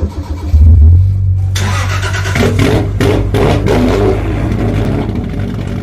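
Japanese sports car engine starting up and revving loudly, its low exhaust note holding steady after a burst about a second in.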